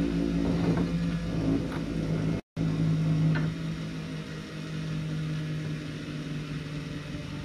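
Bench grinder motor running with a steady hum while a lawn mower blade is sharpened on its wheel, with light grinding scrapes as the blade edge touches the wheel in the first half. The audio cuts out briefly about two and a half seconds in.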